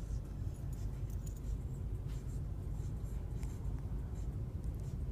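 A young pet's hiccups, heard as faint short clicks every second or so over a steady low rumble.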